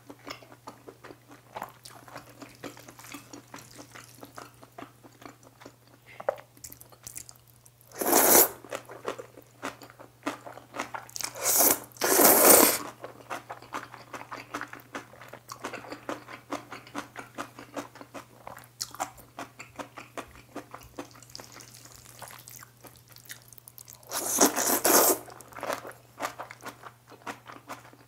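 Close-miked eating sounds: steady wet chewing with crunches and small mouth clicks from jjapagetti noodles, kimchi and beef. A few louder, noisier bursts of about a second stand out, likely noodle slurps.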